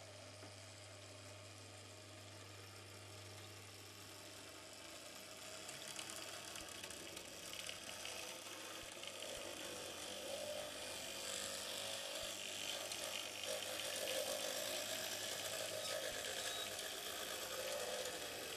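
Small electric motor of a 00-scale model tram (Blackpool crossbench car 127, Alan Kirkman drive) whirring, its wheels running and clicking over the rails. It gets louder from about six seconds in as the tram comes close.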